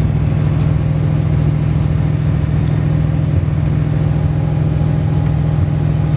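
Freshly rebuilt 350 cubic-inch small-block V8 of a 1969 Corvette idling steadily.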